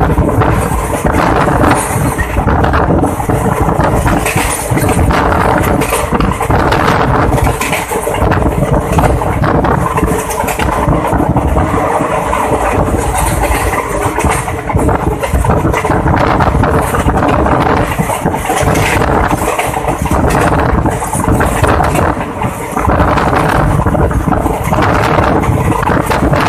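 Passenger train coach running at speed, heard from an open coach window: a steady loud rumble and rattle of the wheels on the rails with rushing air, broken by irregular knocks.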